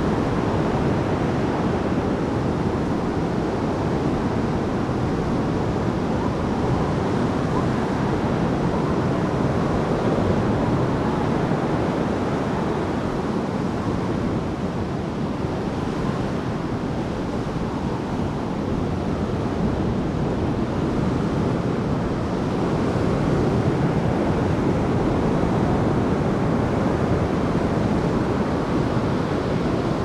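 Ocean surf washing onto the beach, a steady rush of noise, with wind buffeting the microphone.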